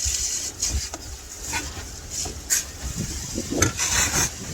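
A series of irregular clicks and knocks over a constant low rumble.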